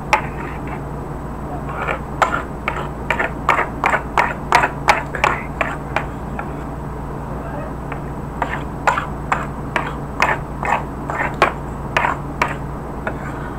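Cutlery scraping and clicking on a plate of breakfast food: two runs of short, sharp scrapes, a few a second, over a steady low hum.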